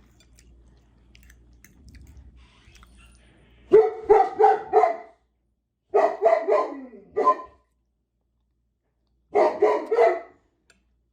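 A dog barking loudly in three bursts of about four quick barks each, a second or two apart, starting about four seconds in.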